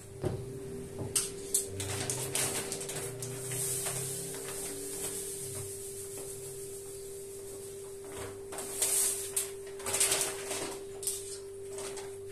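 A plastic bag of granulated sugar rustling and crinkling as sugar is poured from it into an enamel bowl, in short bursts over a steady hum.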